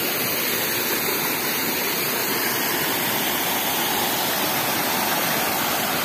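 Steady rush of water falling over a small creek waterfall, running at reduced flow after some days without heavy rain.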